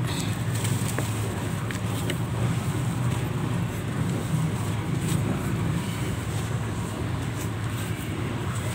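Hands crumbling and squeezing a lump of dry, powdery soil, with faint gritty crackles and a few small ticks, over a steady low rumble.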